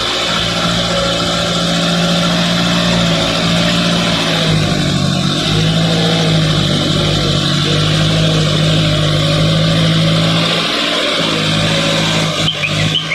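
Backhoe loader's diesel engine running, its speed going up and down a few times.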